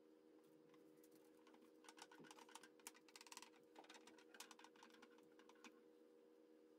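Faint light clicking and rattling as a picture frame backed with chicken wire is turned over and handled on a wooden workbench: a flurry of small clicks starting about two seconds in and dying away a few seconds later, over a steady hum.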